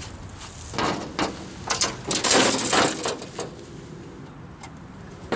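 Sawdust and wood chips being scraped and brushed out of a sawmill: a few rough swishes, the longest and loudest a little past two seconds in, followed by scattered light knocks and clicks.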